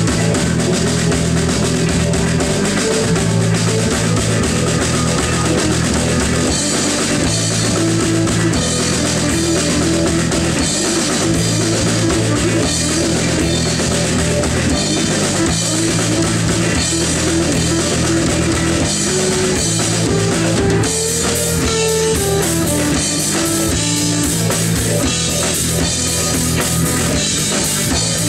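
Small rock band playing live: drum kit with cymbals and bass drum, electric and acoustic guitars and bass, a melody line wandering up and down over steady low notes.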